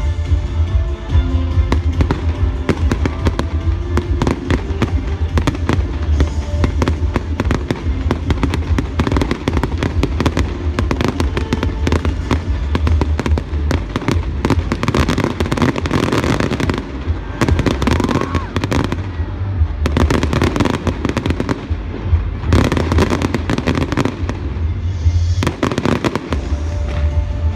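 Fireworks bursting in dense, rapid succession, many sharp bangs a second, over loud music with a heavy bass.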